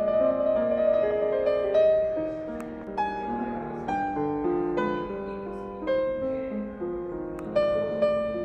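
Background piano music: a slow melody with chords, a new note about once a second, each one ringing and fading.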